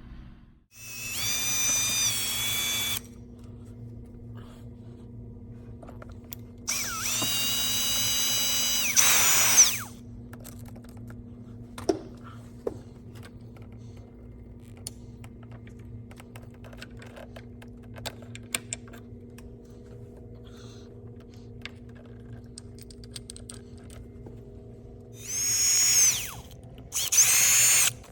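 Handheld electric drill/driver running in four short bursts, two early and two close together near the end. Each burst has a whine that winds up, holds steady, then drops as the trigger is released; it is fastening bolts while the new handlebar goes on. Small clicks and taps come in the gaps over a steady low hum.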